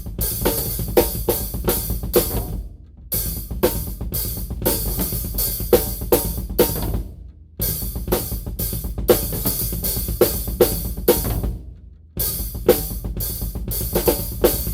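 Acoustic drum kit played in a small untreated storage room: a groove of kick, snare and cymbal or hi-hat strikes. It is repeated in three phrases of about four and a half seconds, with a brief stop between each.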